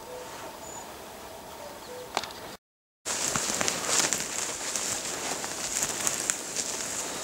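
Footsteps crunching and rustling through dry grass and twigs, with clothing and backpack rustle, starting after a brief dropout about three seconds in. Before that, faint outdoor background with a few short soft notes.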